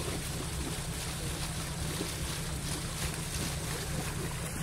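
Nissan Terrano off-roader's engine running steadily with a low rumble while the vehicle sits stuck deep in bog water.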